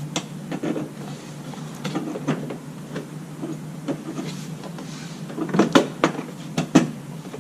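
Plastic bumper cover clicking and knocking against a Quik Latch quick-release bumper fastener as it is released and pushed back in to lock: scattered sharp clicks, with a quick cluster of louder clunks near the end.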